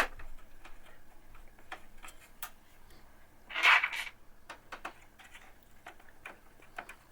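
Small clicks and knocks of a drive sled being worked out of the bottom of a Lian Li PC-Q25 aluminium computer case, with a sharp click at the start and a louder half-second rustle about three and a half seconds in.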